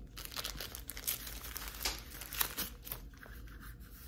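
Crinkling and rustling of a packaging wrapper handled and unwrapped by hand, with scattered sharper crackles, the loudest about halfway through.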